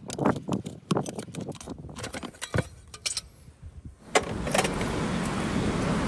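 Sharp metallic clinks and clanks as a farrier pries a steel horseshoe off a hoof set on a hoof stand, several strikes over the first three seconds. About four seconds in they give way to a steady rushing noise.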